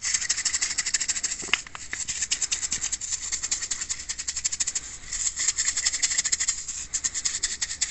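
Plastic jar of Sonic Boom binary exploding target (Tannerite-type) being shaken hard by hand: a fast, even rattle of several shakes a second as the powder and catalyst beads are mixed together, which arms the explosive.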